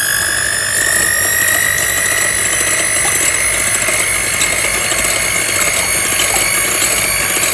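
Elekta electric hand mixer running steadily, its beaters whisking eggs, milk and oil in a glass bowl. The motor gives a high whine that creeps slightly higher in pitch.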